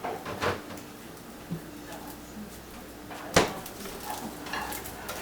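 A few sharp clacks and knocks of small hard objects being handled, the loudest about three and a half seconds in, over a steady low hum.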